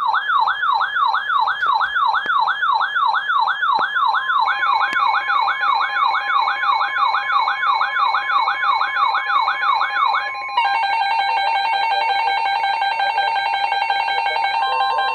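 Electronic emergency alert tone warbling rapidly up and down, about three sweeps a second, with a steady tone joining it about four seconds in. About ten seconds in it switches abruptly to a steady, slightly pulsing multi-tone alert.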